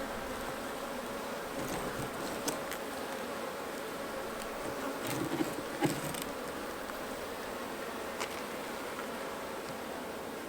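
Honeybees buzzing steadily around an opened nuc hive, a colony stirred up after its propolis-glued frames were pried loose and some bees crushed. A few light knocks sound over the hum.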